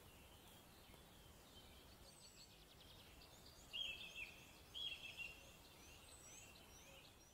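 Faint outdoor ambience with small birds singing: a series of short, high, down-slurred chirps, with two louder chirping phrases about four and five seconds in.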